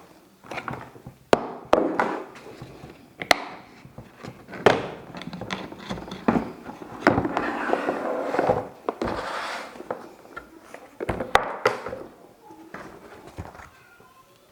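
Plastic vacuum-cleaner parts and extension pipes being handled: a series of sharp clunks and knocks with rustling in between.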